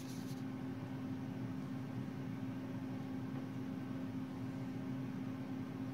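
Steady hum of a small electric motor turning a glass display turntable, with one constant low tone.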